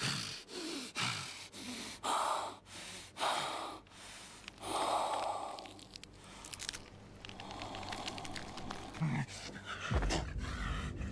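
A man breathing hard and ragged, with deep breaths in and out about a second apart after a fight. A deep low rumble comes in near the end.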